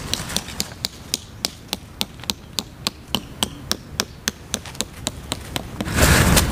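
A hammer tapping a tent peg into the ground with quick, even knocks, about five a second. A louder burst of noise comes near the end.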